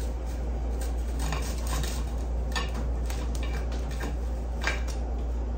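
Knife and fork cutting a sausage patty on a plate: a few light scrapes and clicks of cutlery against the plate, over a steady low hum.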